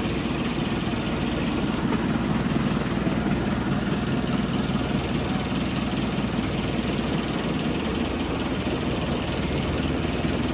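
Engine of a motorized outrigger fishing boat running steadily while the boat is under way.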